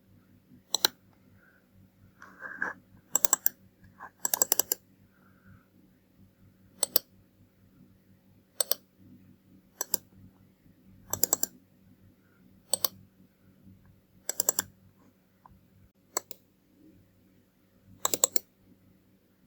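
Computer mouse buttons clicking: single clicks and quick double clicks, one every second or two, with a short run of several clicks about four seconds in. A faint steady hum lies underneath.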